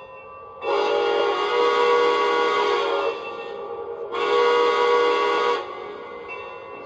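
Lionel model steam locomotive's onboard sound system blowing its steam whistle twice: a long blast of about two and a half seconds, then a shorter one of about a second and a half, each several tones sounding together. Two long blasts are the railroad signal to proceed.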